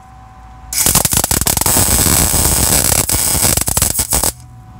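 MIG welder arc crackling on a rusted steel truck frame as a tack weld is struck. It starts suddenly about a second in and cuts off sharply near the end.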